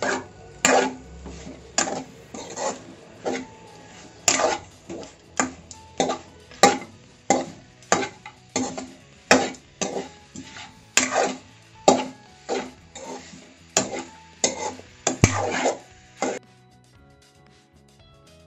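A metal spoon knocking and scraping against a cooking pot as pieces of pork are stirred, close to two strokes a second, stopping about two seconds before the end.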